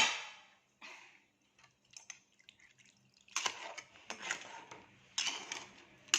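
A metal clank at the start, then after a quiet stretch a few seconds of a utensil stirring and knocking in a pot of crab curry, with liquid sloshing.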